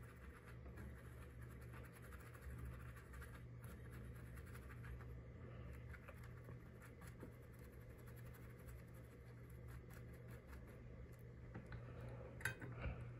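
Faint scratching of a small bristle brush scrubbing an alcohol-wet phone button flex cable, over a low steady hum, with a couple of light clicks near the end.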